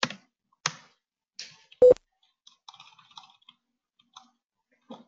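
Computer keyboard and mouse clicks, a few separate sharp clicks followed by a quick cluster of lighter taps. About two seconds in, one much louder sharp knock with a brief ringing tone.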